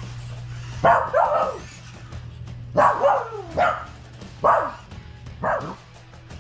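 Pomsky puppy barking in play at a radio-controlled toy buggy: about seven short barks in twos and threes, each dropping in pitch, over steady background music.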